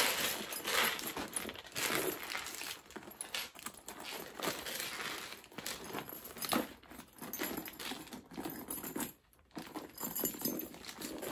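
Scissors snipping through plastic wrapping, with continual crinkling and rustling of the packaging and light metallic clinks as it is handled. There is a brief lull about nine seconds in.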